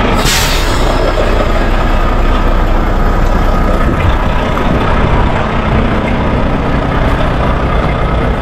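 Volvo VNL semi-truck rolling slowly on a gravel road: steady engine and road noise, with wind buffeting the phone held outside the cab window and a brief rush of noise near the start.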